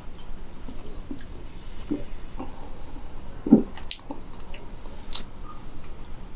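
Close-miked mouth sounds while drinking fizzy cola: small wet smacks and clicks, with one louder, short low sound about three and a half seconds in.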